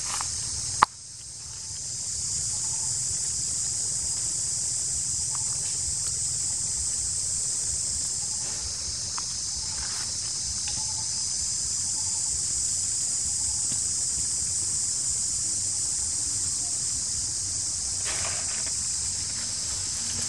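Steady high-pitched insect chorus, with a low rumble beneath it. A single sharp click comes about a second in, after which the sound drops briefly and swells back.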